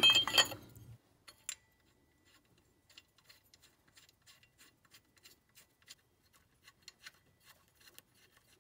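Water pump pulley being fitted onto the pump hub with its bolts threaded in by hand: faint, scattered small metallic clicks and light rubbing.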